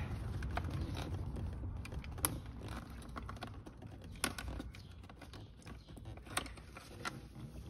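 Small plastic clicks and ticks of an automotive wiring connector being worked loose and unplugged under a car's dashboard, with a few sharper clicks about two, four and six and a half seconds in.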